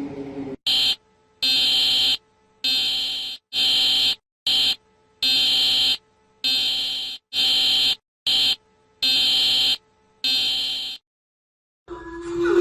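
Emergency alert tone: a string of about eleven high-pitched electronic beeps, some long and some short, in an uneven Morse-like pattern with silent gaps between them.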